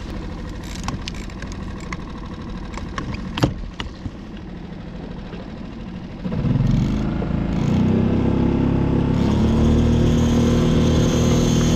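Small skiff's outboard motor running at low speed, with a sharp knock about three and a half seconds in; then, a little after six seconds, it is throttled up and runs steadily louder at trolling speed.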